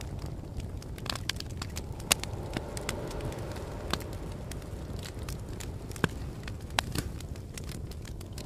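Small wood campfire crackling, with sharp irregular pops over a steady low rumble.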